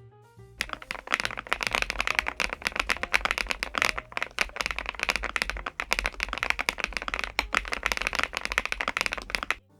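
Rapid typing on a KiiBOOM Phantom81 Lite mechanical keyboard with Mochi switches and PC keycaps: a dense, fast stream of keystroke clacks that starts about half a second in and stops just before the end.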